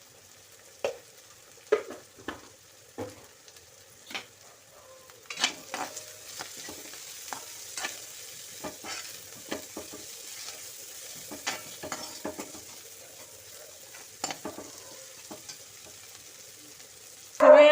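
Chopped vegetables sizzling as they stir-fry in a pan, with a spatula stirring and knocking and scraping against the pan at irregular intervals.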